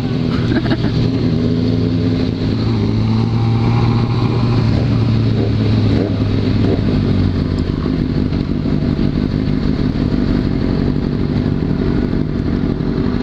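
Motorcycle engines running at low speed as several bikes ride slowly together, with a steady low engine note that eases a little about halfway through.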